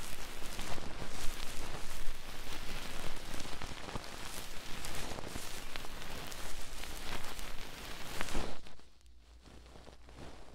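ASMR ear-massage scratching and rubbing close on the microphone: a dense crackling patter dotted with sharp ticks. It stops about eight and a half seconds in and only faint noise is left.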